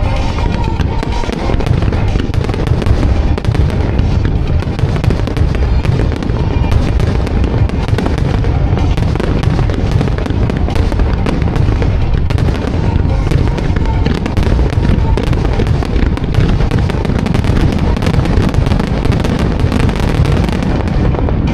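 A dense, unbroken barrage of firework bursts and crackle from a music starmine. The show's music plays underneath it over loudspeakers.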